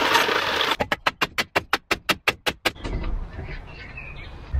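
Handheld power tool running steadily as it cuts into an old wooden beam, then stopping just under a second in; a fast, even run of sharp ticks, about seven a second, follows for about two seconds.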